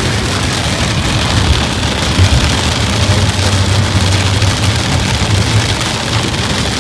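Heavy rain beating on a moving car, over a steady low hum of engine and road noise.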